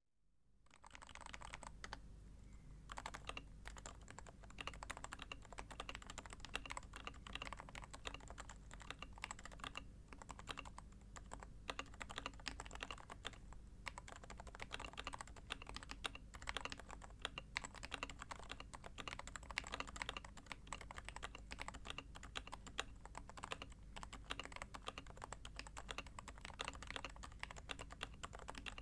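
Continuous typing on a custom Topre electro-capacitive keyboard with 45g rubber domes and DCS blank keycaps: a stream of soft, muted keystrokes with no breaks. A steady low hum sits underneath.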